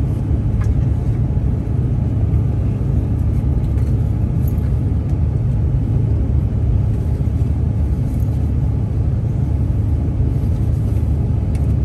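Steady, low-pitched cabin noise of a Bombardier CRJ-700 climbing just after takeoff: its rear-mounted turbofan engines at climb power together with airflow over the fuselage, heard from inside the cabin.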